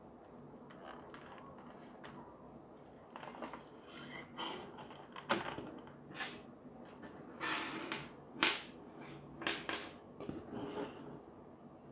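Hands handling a plastic LED T5 tube fitting and its small plastic clips on a hard surface: scattered clicks, taps and scrapes that begin a few seconds in, with sharper knocks about five and eight seconds in.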